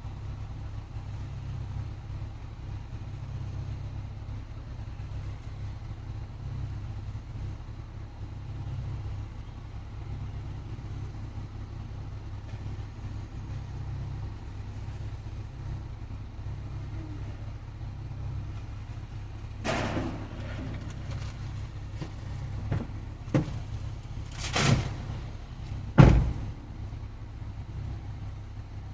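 Steady low rumble like an idling engine, with a few separate knocks and bangs in the second half; the loudest bang comes about 26 seconds in.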